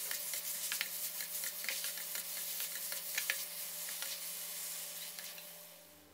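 Stir-fry sizzling in a metal wok, with the spatula scraping and clicking against the pan as eggplant, minced pork and Thai basil are tossed. The sizzle fades away near the end.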